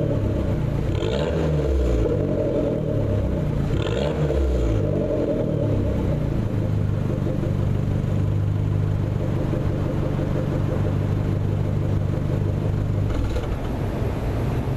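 Fiat 500 Abarth's 1.4-litre turbocharged four-cylinder through a Ragazzon Group N sport exhaust, heard at the tailpipes: the throttle is blipped twice, about a second and four seconds in, then the engine settles to a steady idle.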